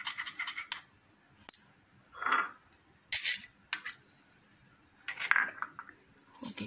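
A small glass bowl clinking and knocking as it is handled and set down on a hard surface: a rattle of clinks at the start, then a few separate sharp clicks and knocks with soft handling noise between them.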